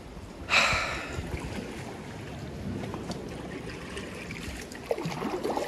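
Sea water lapping and sloshing around a kayak, with one loud splash about half a second in.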